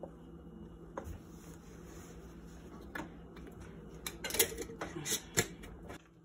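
Wooden spoon stirring melted butter and garlic in a stainless steel pan, with scattered clicks and knocks of kitchen utensils and jars, the sharpest ones coming close together from about four seconds in. A steady low hum runs underneath.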